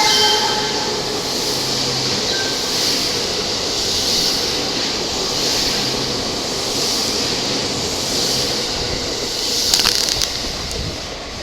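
E261 series Saphir Odoriko limited express passing through the station at speed. The wheel and rail noise swells about every second and a half as each car goes by, with a few sharp clicks over the rail joints about ten seconds in.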